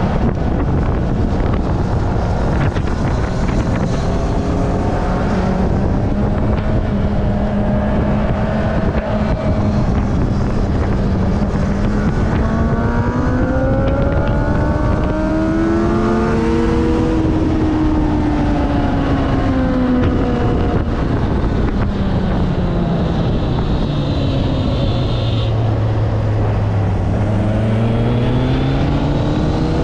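Kawasaki ZX-9R inline-four engine running at moderate revs under heavy wind rush on the bike-mounted camera. The revs climb slowly to a peak about halfway, drop away to a low point a few seconds before the end, then pick up again.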